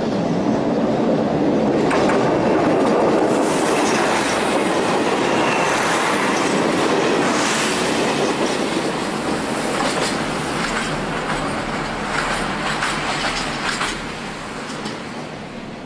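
Diesel multiple-unit train passing close over a steel girder bridge, its wheels clattering over the rail joints in a steady run of clicks, then fading as it moves away near the end.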